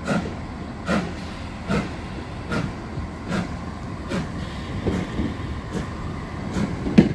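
LNER Thompson B1 steam locomotive 61306 Mayflower moving off slowly, its two-cylinder exhaust giving even chuffs a little more than once a second. A sharp knock comes at the very end.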